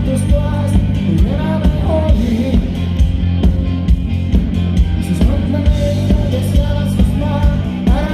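Live metal band playing loud: electric guitars, bass and drums with a singer's voice over them, recorded from within the crowd.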